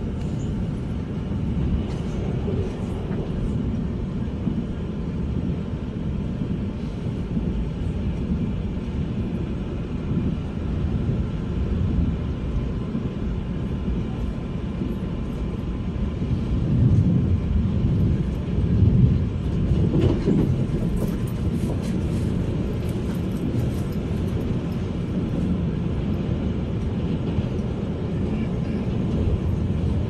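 Subway train running over a bridge, heard from inside the car: a steady low rumble of wheels on rails that grows louder for a few seconds just past the middle.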